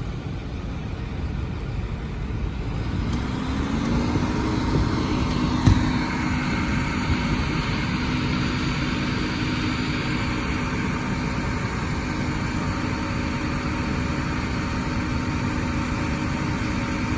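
Ford F450's Power Stroke diesel engine idling. About three seconds in, with the PTO engaged to drive the boom's hydraulics, its pitch rises and settles into a steadier, louder hum. A single short knock comes about six seconds in.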